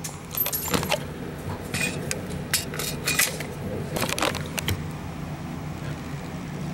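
Sharp metallic clicks and clinks from a Smith & Wesson M&P9C pistol and its magazines being handled and picked up off a rubber mat, in several short clusters over the first four or five seconds.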